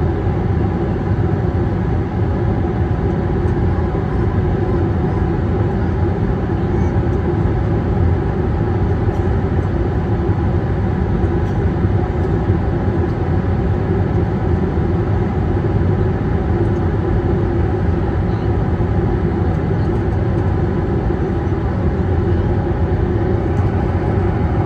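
Steady engine drone and airflow noise inside the cabin of an Airbus A321neo during its climb, heard from a window seat over the wing: an even rush with a few steady low hum tones, unchanging throughout.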